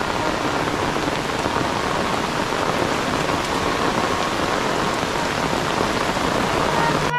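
Heavy rain falling steadily, a dense even hiss of many drops on leaves and ground.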